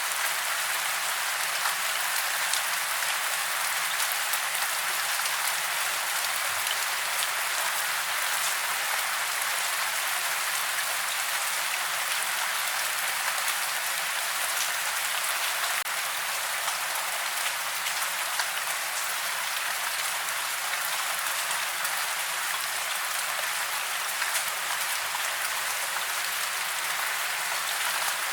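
Steady rain falling, an even hiss with a light patter of drops and little low rumble.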